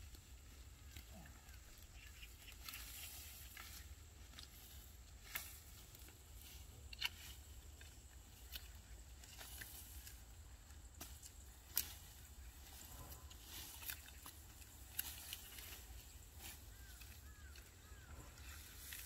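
Scattered sharp snaps and clicks of perilla stalks being cut and handled during harvest, over a steady low rumble, with a few faint chirps near the end.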